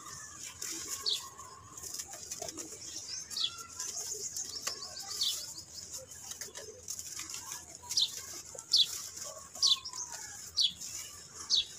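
Dry red dirt chunks crumbled by hand, a soft gritty hiss with small crackles as the powder falls. Over it, a bird gives short downward-sliding chirps, a few at first and then about one a second in the second half; these chirps are the loudest sound.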